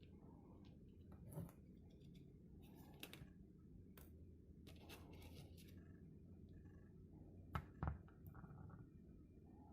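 Near silence over a steady low hum, broken by a few faint clicks and scratches, the loudest two close together near the end.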